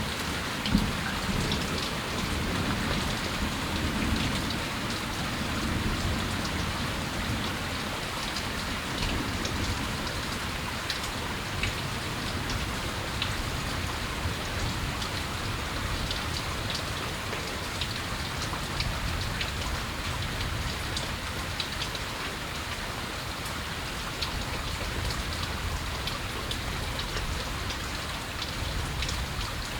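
Steady moderate rain falling, with scattered drops ticking sharply on hard surfaces close by. A low rumble of distant thunder swells and fades in the first several seconds.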